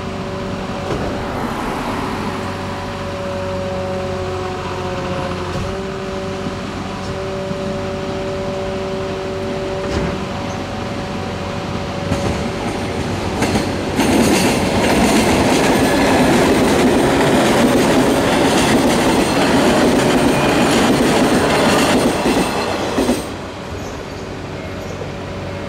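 JR 115-series electric multiple-unit train approaching and passing close by, getting louder through the first half. It is loudest for about ten seconds from the middle, with the wheels clattering over the rails, then drops off sharply near the end as the train clears.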